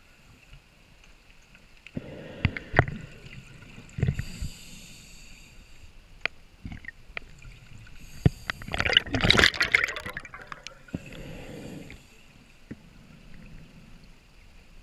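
Scuba diver breathing through a regulator underwater. Exhaled bubbles gurgle out in bursts about two and nine seconds in, the second the loudest, with an inhalation through the regulator in between.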